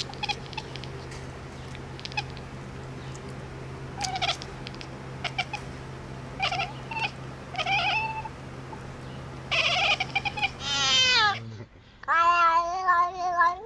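An animal calling: short pitched cries about four, six and eight seconds in, then a louder, longer cry that falls in pitch, and a wavering cry near the end. A steady low hum and a few clicks run underneath until shortly before the last cry.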